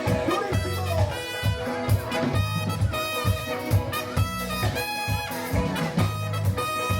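Upbeat swing-style jazz with brass horns playing held notes over a steady, regular bass beat.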